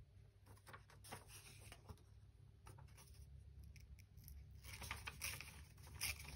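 Faint light taps and rustles of paper being handled by hand, with a denser, scratchier rustle in the last second and a half.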